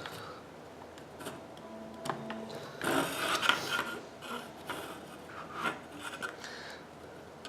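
Scratchy rubbing and a few small clicks of hands working a plastic wire connector out of a DJI Phantom quadcopter's controller board, the loudest scraping about three seconds in.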